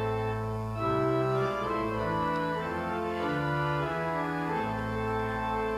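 Organ playing sustained chords that change about once a second, with no voices.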